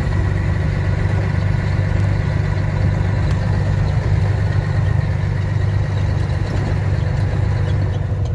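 Truck engine and road noise droning steadily inside the cab while driving at speed on the highway.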